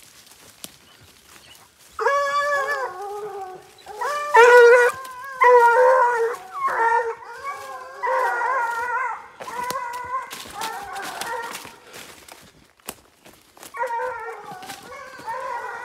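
Young hunting hounds baying on a scent trail: long, wavering howls, some overlapping, starting about two seconds in and coming and going after that. Faint rustling of undergrowth is heard before the first howl.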